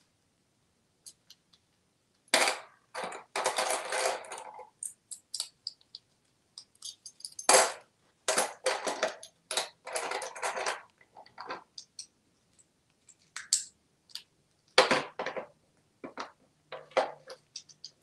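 An African grey parrot rummaging with its beak in a plastic toy cash tray, rustling the play paper bills and clicking against the tray in irregular bursts, on and off.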